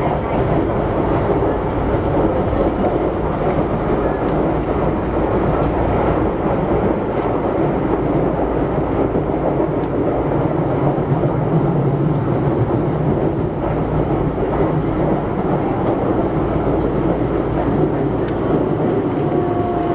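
Running noise of an Osaka Metro 66 series train heard from inside the car: a steady rumble of wheels on rail with a few faint clicks. It is running slowly under a speed restriction after heavy rain. Shortly before the end a faint falling whine sets in.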